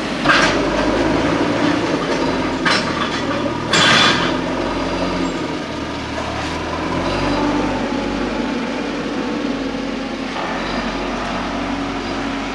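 A heavy diesel machine running steadily, with three short harsh bursts in the first four seconds.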